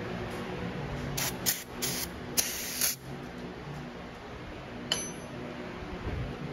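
Aerosol can of brake cleaner sprayed in four short hissing bursts, the last the longest, to clean carbon off a piston top. A sharp click follows a couple of seconds later.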